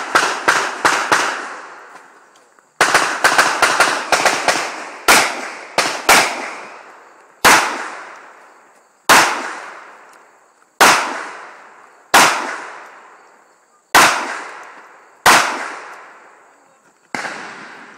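Pistol shots fired during a practical pistol course of fire, each with a short echoing tail. A quick string of shots opens, a second fast string comes about three seconds in, and then single shots follow about every one and a half seconds.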